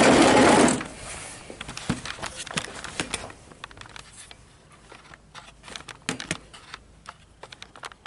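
A short, loud rush of noise lasting under a second, then scattered light clicks and knocks of a camera and objects being handled.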